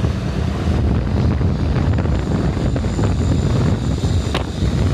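Wind buffeting the microphone over a steady low rumble of engines and road noise in traffic, with one sharp click about four and a half seconds in.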